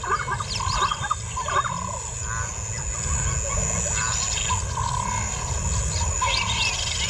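African lions growling and grunting low, with wavering moaning calls, as lionesses and cubs press around the pride male. A few short high chirps come in near the end.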